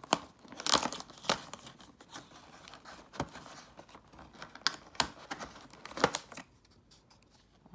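Perforated cardboard door of a cheese advent calendar being torn open by hand, with the plastic-wrapped cheese inside being handled: a series of sharp tearing and crackling noises that die down in the last second or so.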